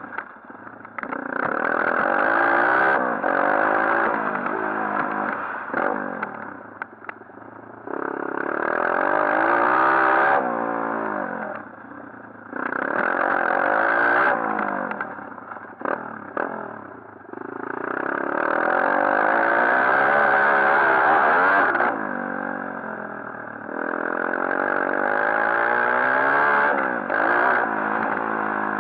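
140cc pit bike's single-cylinder four-stroke engine revving up and easing off again and again as it is ridden, its pitch climbing and dropping, with loud stretches of a few seconds between quieter dips.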